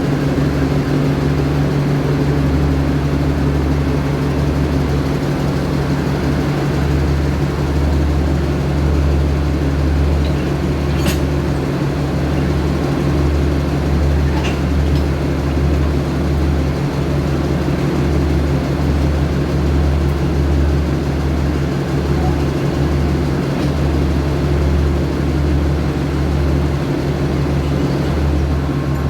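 A diesel railway engine idling: a steady, deep hum with an uneven low throb.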